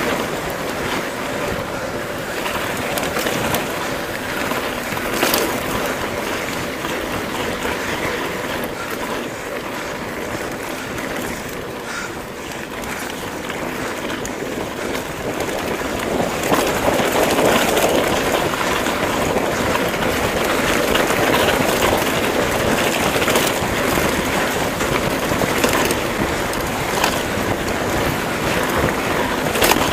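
Mountain bike rolling along a dry dirt trail, with tyre noise and wind rushing over the action camera's microphone and an occasional sharp click. It grows louder about halfway through.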